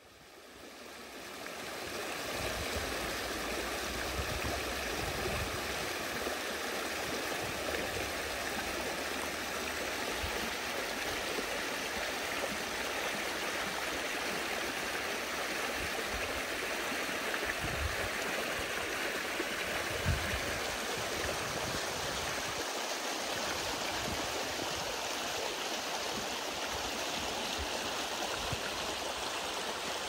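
Small, shallow stream running over stones and rocks: a steady rushing and burbling of water that fades in over the first couple of seconds.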